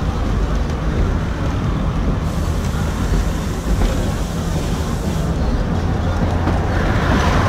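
Vintage Sóller electric tram running along its track, heard from aboard its open wooden car: a steady low rumble of wheels on rail, with a higher hiss for about three seconds in the middle. The noise grows louder near the end as a second tram approaches on the next track.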